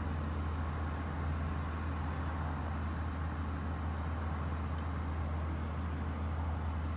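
Cummins N14+ inline-six diesel of a Volvo VNL42T truck idling steadily, a low, even hum.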